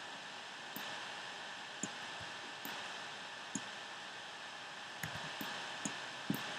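Scattered single computer mouse clicks, about eight at uneven spacing with two close together near the end, over a steady hiss of microphone noise.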